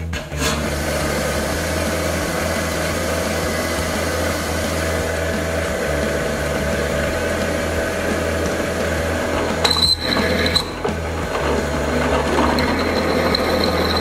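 Drill press running and drilling through a small metal bracket clamped in a machine vise, a steady mechanical hum throughout. A thin high whine comes in briefly about ten seconds in and again near the end.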